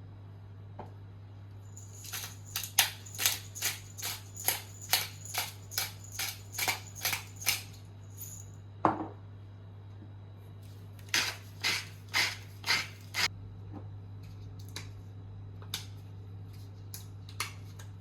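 Knife chopping on a cutting board in two runs of even strokes, about two to three a second, over a steady low hum.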